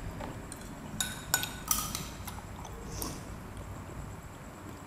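Metal spoon stirring a drink in a tall glass, clinking against the glass a few times, sharp ringing clinks about one to two seconds in.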